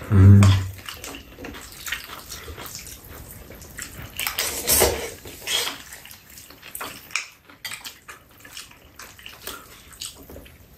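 Two people eating cold spicy mixed noodles: chopsticks clicking and scraping against the bowls, with short wet slurping and chewing sounds.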